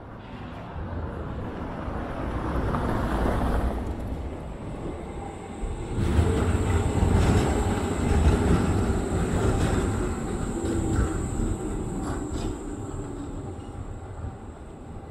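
A tram passing close by, its wheels rumbling on the rails over a steady high whine. The rumble is loudest from about six seconds in and then fades.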